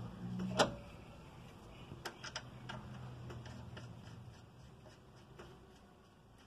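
A nut being spun on by hand onto the threaded stud of a tie rod end at the steering knuckle: one sharp metal click about half a second in, then scattered light ticks.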